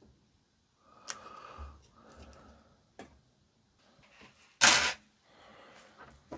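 Small hard parts being handled on a workbench: a few light clicks and soft rustles, with one louder, half-second clatter about two-thirds of the way through.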